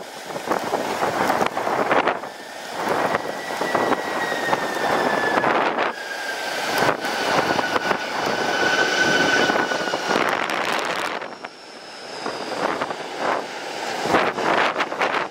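Jet airliner passing on landing approach, its engine whine slowly falling in pitch as it goes by. Heavy gusty wind buffets the microphone throughout.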